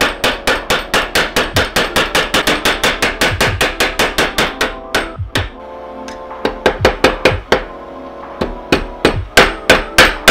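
Hammer blows on a steel screwdriver shaft laid across the anvil of a bench vise, forging the shaft flat: a fast run of about five ringing strikes a second for roughly five seconds, a short pause, then two shorter runs of louder blows.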